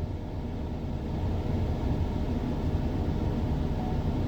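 Steady low rumble of a car, even throughout with no distinct events.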